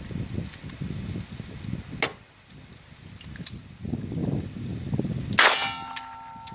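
A revolver firing .22 rimfire rounds: sharp reports about 2 and 3.5 seconds in, then a louder crack about 5.4 seconds in followed by about a second of metallic ringing.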